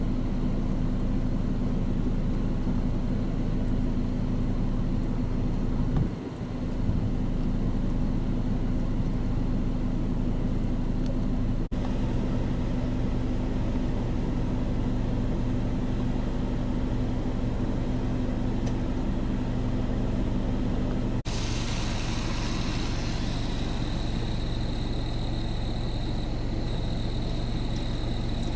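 Steady low motor hum, unchanging in pitch, with a short dip about six seconds in. The sound shifts abruptly twice, and a thin high steady whine joins it for the last third.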